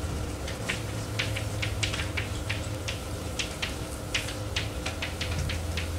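Chalk tapping and clicking on a blackboard as words are written: quick, irregular sharp taps, three or four a second, over a steady low hum in the recording.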